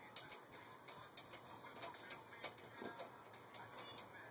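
Irregular, faint metallic clicks and taps of hand tools working on a bicycle's crank and frame, about seven in all, the sharpest just after the start.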